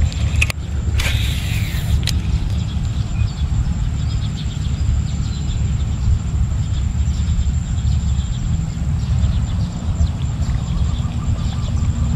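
A baitcasting reel paying out line on a cast: a brief hiss about a second in. Under it runs a steady low rumble.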